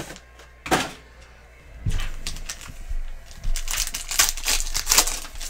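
Foil wrapper of a trading-card pack crinkling and tearing as it is opened by hand, with a sharp tap under a second in.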